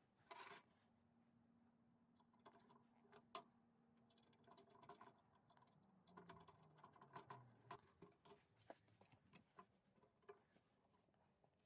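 Faint clicks, taps and scrapes of small steel parts being handled, with a hand screwdriver turning a screw into a steel bracket about halfway through.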